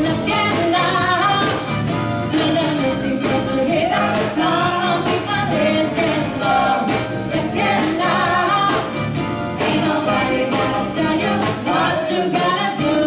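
Live band playing a song with singing over a steady drum beat.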